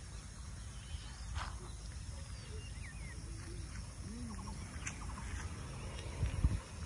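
Outdoor ambience: a steady low rumble of wind on the microphone, with a few faint bird chirps. A louder low thump comes about six and a half seconds in.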